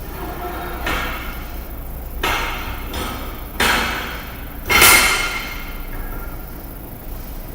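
Four metal clanks about a second and a half apart, getting louder, the last ringing briefly: an axle shaft being worked and knocked into the differential housing.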